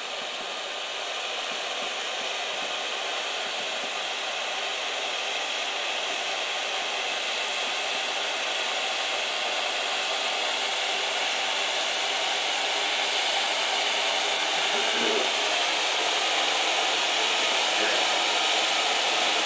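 Fuji ground firework fountain spraying sparks with a steady rushing hiss that grows gradually louder as the fountain builds up in height.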